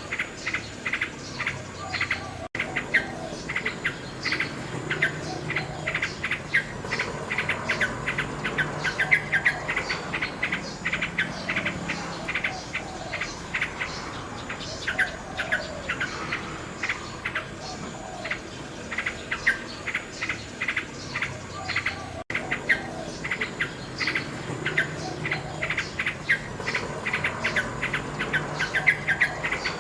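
Nightingale singing continuously in rapid runs of repeated notes and trills, with crickets or other insects chirping behind. The sound drops out for an instant twice.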